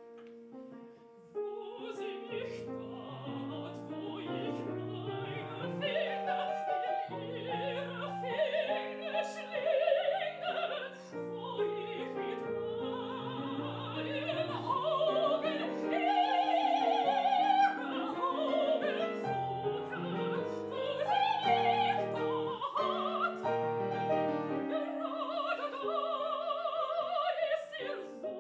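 Operatic singing by female voices, a mezzo-soprano and a soprano, with wide vibrato, accompanied by piano.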